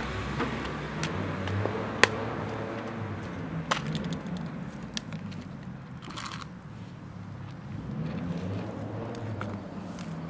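Plastic food tub with a snap-on lid being opened and handled: a few sharp plastic clicks and cracks, the sharpest about two seconds in, over a low background rumble.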